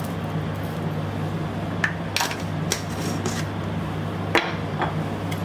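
About six sharp taps and knocks of kitchen utensils from the second second on, the loudest about four and a half seconds in, as crushed black pepper is shaken over raw chicken pieces; a steady low hum runs underneath.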